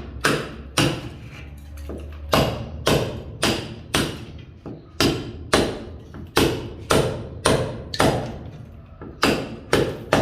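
Hammer blows struck in a steady rhythm of about two a second, each a sharp knock with a brief ringing decay.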